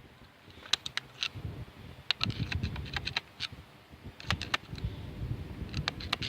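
Irregular sharp metallic clicks and taps of a screwdriver probing the head-bolt holes in a Chevy 3.1 V6's cast-iron block deck, checking whether each hole stops blind or runs into a water jacket, over low handling rumble.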